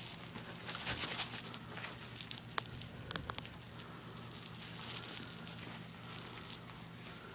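Faint rustling and soft footsteps of a person moving about, with scattered small clicks and a steady low hum underneath.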